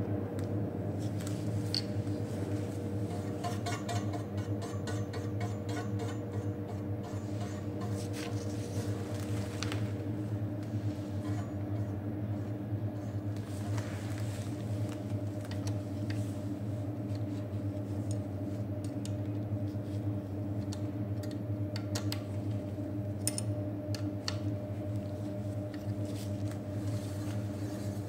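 A steady low hum with a few light clicks and small metallic taps scattered through it, some in short clusters, from hands working on a bicycle disc brake caliper.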